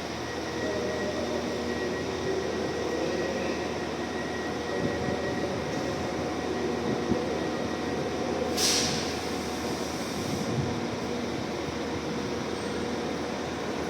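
Interior running noise of a passenger train: a steady rumble with a low hum. About two-thirds of the way through there is a hiss lasting about two seconds.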